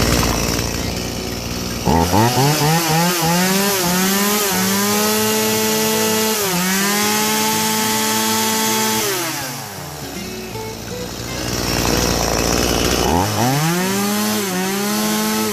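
30cc Stihl two-stroke chainsaw on a test run after fuel-system repair (new fuel hose, filter, carburettor diaphragm and oil seals): it runs low, then is revved up to full throttle and held for several seconds, drops back around ten seconds in, and is revved up again near the end.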